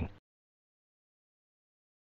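Dead digital silence after the narration's last word trails off a fraction of a second in.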